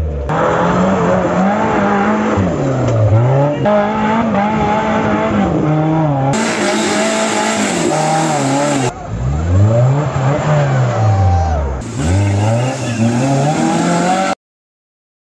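Engines of off-road 4x4s revving hard up and down as they climb muddy slopes, in a run of short clips that cut from one vehicle to the next. The sound stops abruptly near the end.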